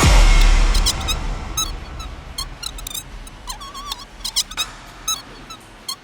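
A loud whoosh with a deep boom at the start, then a string of short, irregular high-pitched squeaks, like the squeaking wheels of a puppet's tricycle rolling in.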